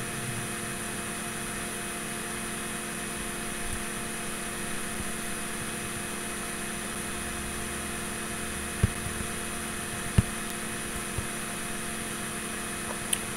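Steady electrical mains hum with hiss, and a few faint clicks in the second half.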